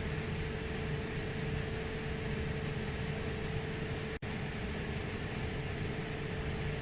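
Steady airliner cockpit ambience: a constant rushing noise with a low rumble and a steady hum. It cuts out for an instant about four seconds in.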